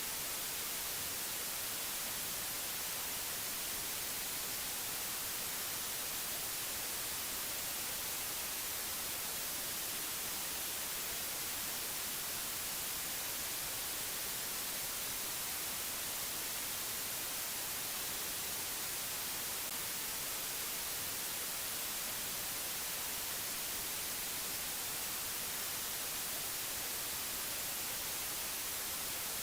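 Steady, unchanging hiss of white noise, strongest in the high frequencies.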